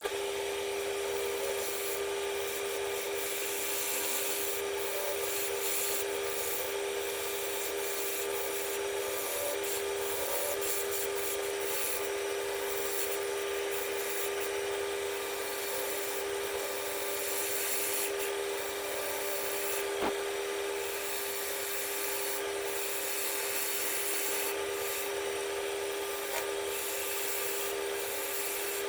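Wood lathe running with a steady hum while a tool or abrasive rubs against the spinning wood, making a continuous rasping sound. There is a single sharp click about two-thirds of the way through.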